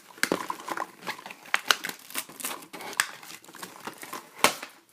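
Plastic toy packaging crinkling and small plastic parts clicking as a toy set is unpacked, with a series of irregular clicks and a sharp knock about four and a half seconds in.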